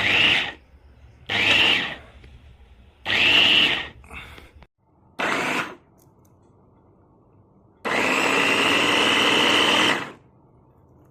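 Dessini Italy RS-1686 capsule cutter chopper's motor pulsed in five short bursts, each whirring up to speed and stopping, then run steadily for about two seconds near the end.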